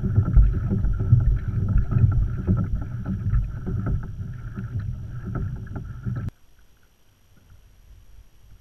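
Kayak under way on calm water: water noise along the hull and wind on the microphone, with scattered small knocks. It cuts off suddenly about six seconds in, leaving only a faint hush.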